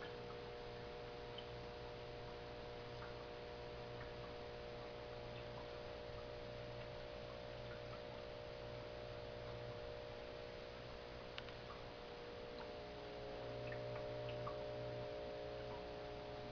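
Aquarium pump humming steadily, with faint scattered ticks. The hum swells slightly near the end.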